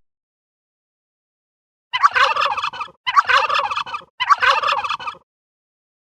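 Turkey gobbling three times in quick succession, each gobble a rapid rattling call of about a second, starting about two seconds in.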